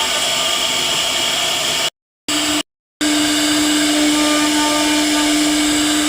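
CNC wood router's spindle motor running with a steady whirring hiss. The sound drops out completely twice, briefly, about two and three seconds in, and a steady low hum runs under it after the second gap.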